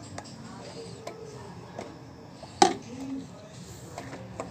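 Slime-making supplies being handled on a table: a few light clicks and one sharp knock about two and a half seconds in as a container is set down.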